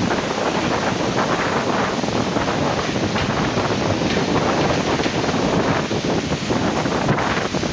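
Heavy monsoon wind buffeting the microphone: a steady, loud rush of noise that swells and dips without a break.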